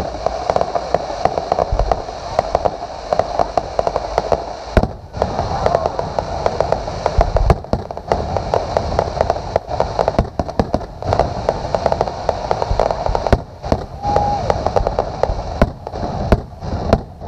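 Fireworks display: a dense, continuous crackle of many small sharp bangs, with a few deeper booms among them.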